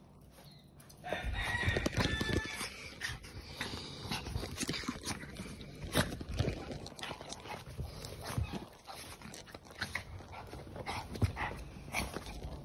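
A small dog whining excitedly as it greets its owner, high-pitched about a second in. Scrabbling and rustling go on throughout as it clambers about and onto his lap.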